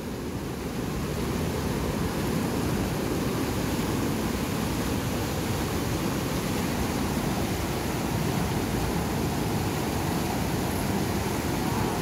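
Rushing white-water rapids of a mountain stream: a steady, full roar of turbulent water, close by.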